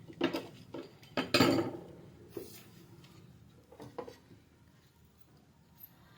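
Small metal tools clinking and knocking on a hard surface: a quick cluster of light clinks in the first two seconds, two more near four seconds in, then quiet handling.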